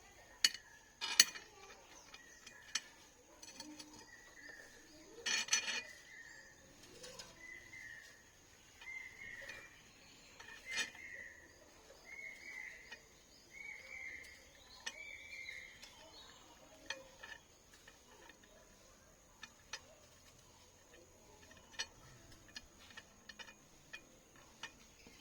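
Scattered small clicks and taps of soldering work on a small circuit board, the sharpest near the start. A bird chirps over and over in the background through the middle.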